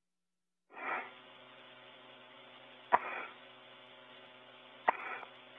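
Open space-to-ground radio channel from a spacesuit: a steady electrical hum and hiss cut in about a second in, with a short hissing rush, then two sharp clicks, each followed by a brief hissing rush.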